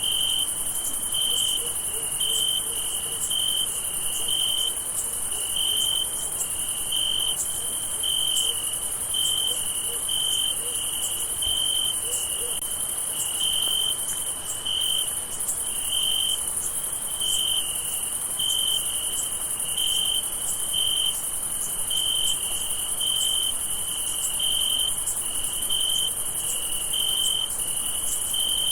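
Night chorus of crickets: a steady high-pitched trill, with a lower chirp pulsing a little more than once a second over it.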